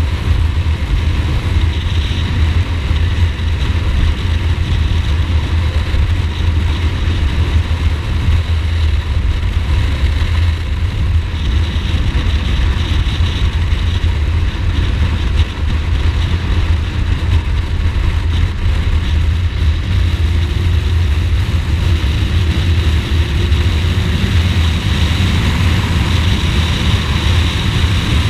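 Ducati Multistrada motorcycle riding along at a steady pace, its engine running under a constant rush of road and wind noise, with a slight rise in engine pitch around two-thirds of the way through.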